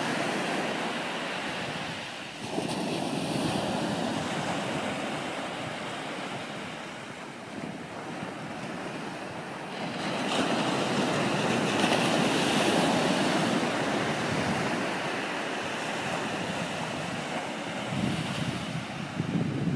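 Ocean surf breaking and washing up a sandy beach, a steady rush that swells and fades as the waves come in, louder again about halfway through and near the end.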